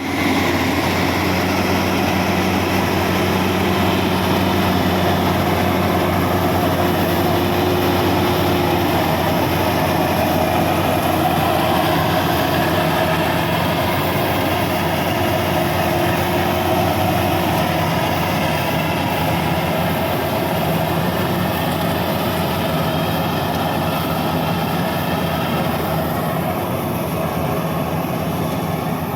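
Bimo 102 rice combine harvester running steadily, its engine giving a constant low hum.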